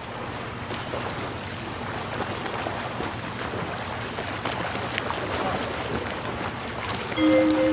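Steady rushing ambience of wind and surf, with a few faint clicks. A held musical chord comes in near the end.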